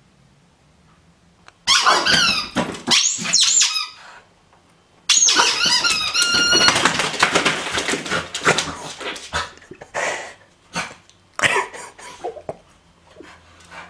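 Small long-haired dog yelping and whining excitedly at the front door as the post arrives: high-pitched cries that bend up and down, then a longer run of shrill steady-pitched yelps, followed by scattered short knocks and rattles as the letters come through the letterbox.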